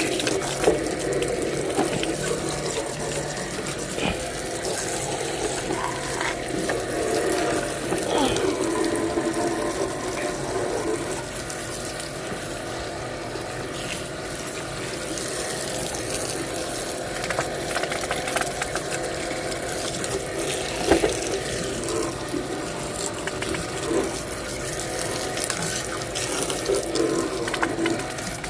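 Water running steadily from a tap while a dirty toy truck is washed under it, with a few sharp knocks now and then, the loudest about two-thirds of the way through.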